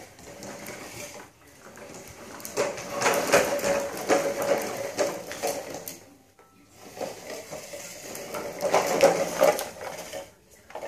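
Plastic wheels of a toddler's push-walker toy rolling and rattling over a tile floor, in two stretches of clatter with a brief pause just past the middle.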